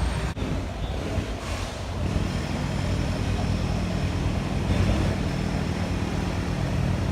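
Steady city street traffic noise with vehicle engines running, and a brief dropout just after the start.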